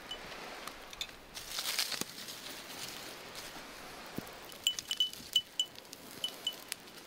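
Small campfire crackling, with sharp pops from the burning kindling. In the second half a short, high ringing chime sounds about eight times in quick succession, louder than the fire.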